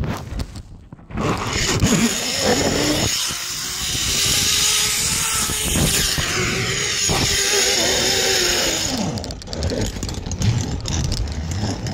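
Zip line trolley pulleys running fast along the steel cable, a rushing whir with a wavering hum, with wind on the microphone; the rush fades about three quarters of the way through as the rider slows.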